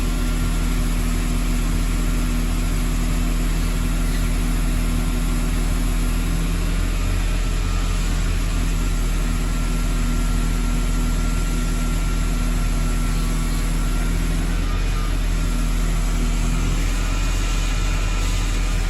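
Large diesel concrete saw running steadily, its engine giving an even low drone with a hiss over it and no change in pitch.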